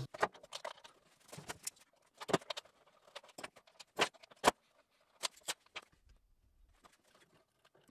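Small metallic clicks and taps of a sheet-metal earthing bracket and its screw being handled and fitted onto a VFD: a scattered string of short, sharp ticks, the two loudest about half a second apart near the middle.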